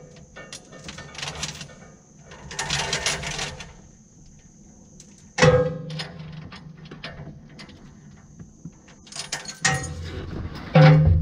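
Heavy steel chain rattling and clinking as it is handled and looped over a steel T-post, with a sharp metal clank about five seconds in and a louder one near the end.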